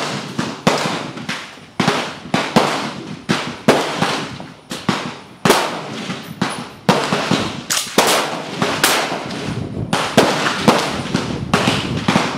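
Rapid, irregular gunfire on an outdoor rifle range: about twenty sharp rifle shots, one or two a second, each with a short echoing tail.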